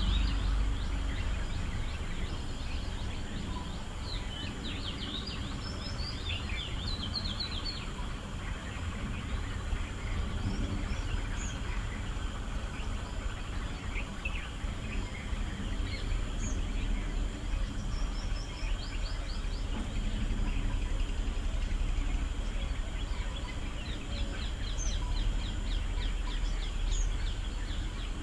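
Outdoor ambience: birds chirping in several quick runs of short high notes, over a steady low rumble and a faint steady high tone.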